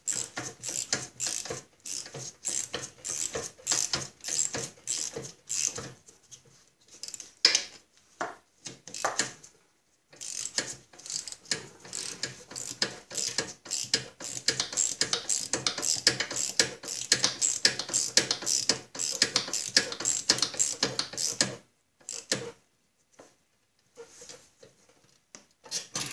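Small socket ratchet clicking in runs of fast clicks, broken by short pauses, as two half-inch nuts on a walk-behind mower's differential bracket are tightened back up.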